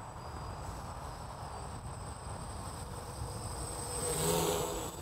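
Small electric quadcopter's motors and propellers buzzing in flight, swelling louder as it passes close about four seconds in. Gusty wind rumbles on the microphone underneath.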